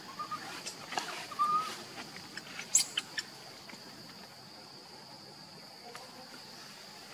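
Two short high squeaks from an infant macaque in the first two seconds, over a steady high insect drone. A few sharp clicks follow around three seconds in.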